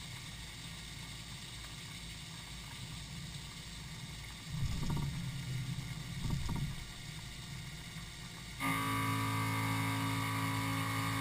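Small 30-taper CNC drilling and tapping machine running a high-speed milling toolpath under flood coolant: a steady low mechanical hum with two louder swells near the middle. About three-quarters of the way in it jumps suddenly to a louder steady whine of several held tones.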